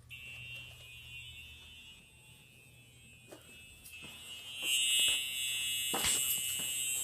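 Simplex TrueAlert fire alarm horn sounding continuously, a steady buzzing electronic tone that grows louder about four and a half seconds in.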